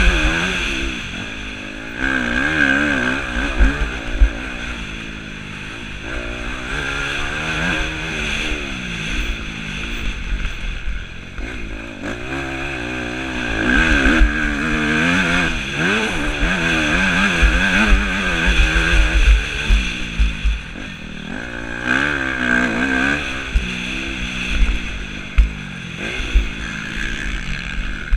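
Yamaha YZ250F motocross bike's four-stroke single-cylinder engine revving hard at speed, its pitch rising and falling over and over as the rider accelerates, shifts and backs off. A low rumble of wind and track bumps, with a few sharp knocks, runs under it.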